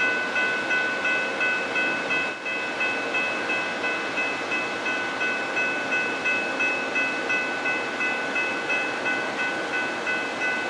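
Railroad grade-crossing bell ringing steadily at about two strokes a second, over the even noise of the Amtrak passenger train.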